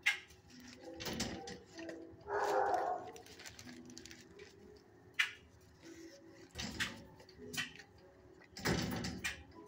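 Animal shelter kennel ambience: scattered sharp clicks and knocks, with a short dog bark about two and a half seconds in.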